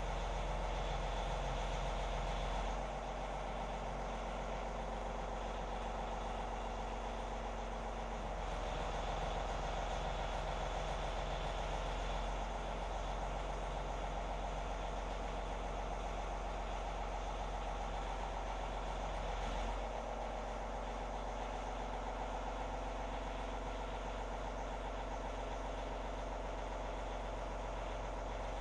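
John Deere compact tractor's engine running steadily while the front loader is worked up and down, its note shifting a few times as the loader hydraulics take load.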